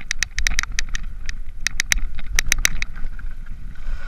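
Mountain bike descending a rough, leaf-covered dirt trail: a string of sharp metallic clicks and rattles from the bike over a steady low rumble of tyres and wind, the clicks thinning out after about three seconds.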